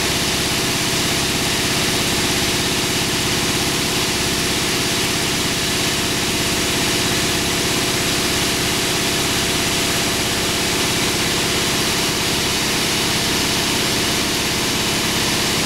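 Maize polisher running steadily with shelled maize kernels streaming through it and out of its discharge chute: a constant machine drone under a continuous hiss.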